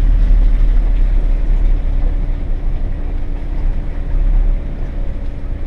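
GAZelle van's engine pulling slowly in first gear over a rough dirt road: a low rumble with a faint steady hum, easing off slightly about four and a half seconds in.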